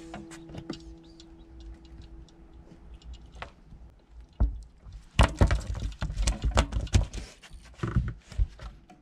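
Guitar music fades out in the first second or so. Then come scattered clicks, and from about four seconds in a dense, irregular flurry of loud knocks and thumps with rumble.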